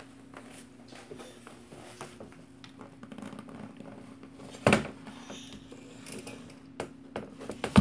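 Light knocks and taps of a folding baby saucer seat's metal frame and a baby's hands on a hardwood floor as the seat is dragged, with one sharp, much louder thump a little over halfway through. A steady low hum runs underneath.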